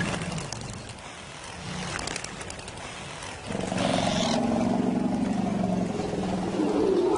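Deep growling and rumbling from large wild animals, lions or elephants, quieter at first with a few faint clicks, then louder from about three and a half seconds in.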